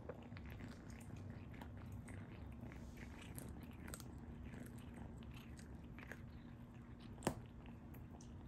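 Kitten chewing and gnawing on a cooked lamb chop bone: faint, irregular small crunches and clicks, with one sharper click about seven seconds in.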